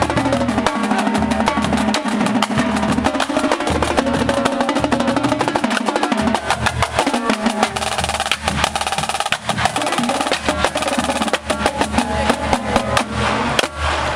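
Marching drumline playing a fast cadence: dense rapid snare drum strokes over pitched bass drum hits in groups. It closes on a final accented hit near the end.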